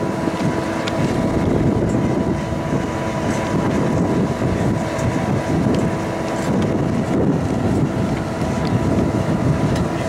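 Steady roar of a homemade blast furnace running under forced air from an electric blower, with the blower motor's steady hum over it. Wind buffets the microphone.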